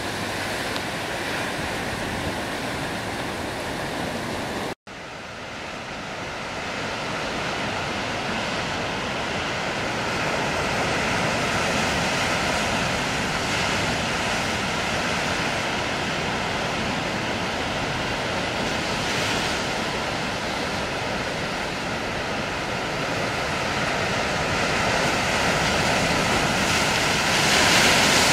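Rough sea and wind: a steady rushing noise of surf and wind. It cuts out for an instant about five seconds in and fades back up, then swells louder near the end.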